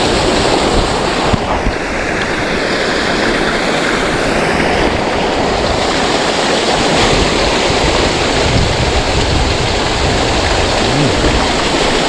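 River water flowing over rocks, with a small cascade splashing in from the bank: a steady rush of water.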